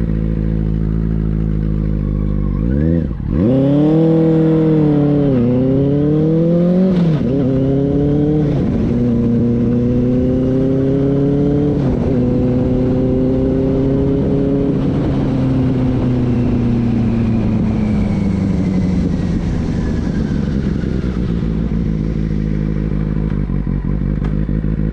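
Benelli 600i's inline-four engine running hard through the gears: the revs climb and drop back at several gear changes in the first twelve seconds or so, then hold a steady note and slowly fall away.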